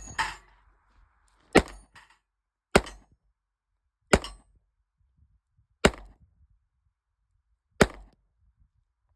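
Rock Island M206 .38 Special revolver fired five times in slow succession, the shots about one to two seconds apart, each with a short echo.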